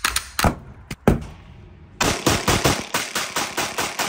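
A few sharp knocks of an object struck against a wooden block, then about two seconds in a fast string of pistol shots, about six a second, echoing in an indoor range.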